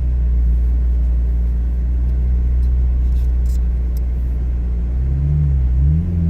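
A McLaren Artura's hybrid twin-turbo V6 running as the car creeps off at low speed, heard from inside the cabin. It gives a steady low drone; its pitch dips and climbs again about five seconds in, then holds a little higher.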